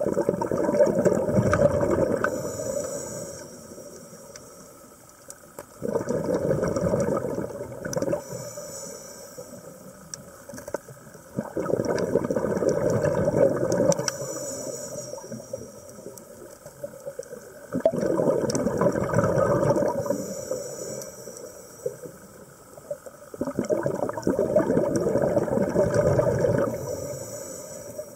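Scuba diver breathing through a regulator underwater: a loud rush of exhaled bubbles about every six seconds, five times, with a short faint hiss of each inhalation in between.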